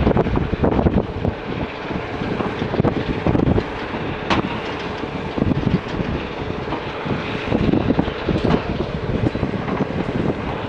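JCB 3DX backhoe loader's diesel engine running under work, with irregular knocks and rattles from the machine, and wind buffeting the microphone.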